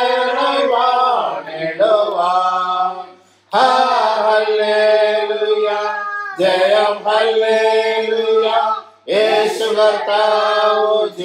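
A man singing a slow Malayalam Christian hymn about the risen Jesus, in long held phrases with short pauses for breath about three seconds in and again near nine seconds.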